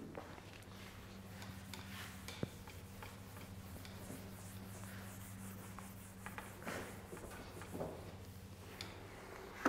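Faint rubbing of a duster wiping a whiteboard, a few soft strokes, over a steady low hum.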